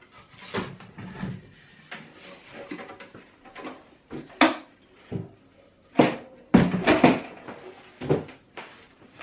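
A homemade wooden UV light box being opened and the plastic mouse parts handled inside: a string of irregular knocks and clatters, the loudest near the end.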